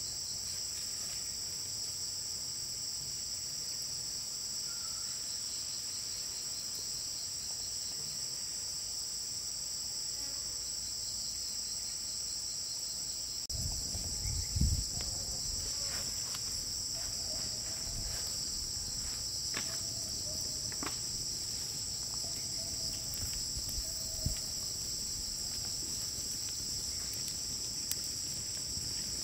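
A steady, high-pitched insect chorus chirring without a break. A little under halfway through, low thumps and scattered clicks of handling join in, the heaviest thumps coming shortly after they start.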